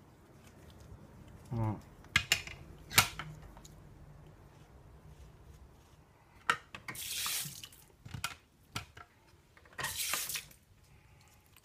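Shaving lather being worked on the face during a wet shave: a few sharp clicks and knocks early on, then two short wet swishing bursts, each about half a second long.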